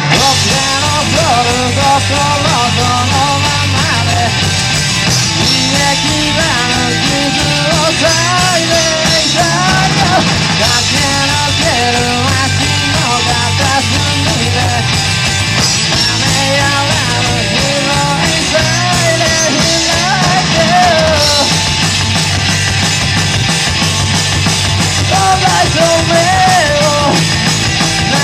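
Rock band playing live at a steady loud level: a singer over electric guitars, bass and drums in a fast punk-rock style.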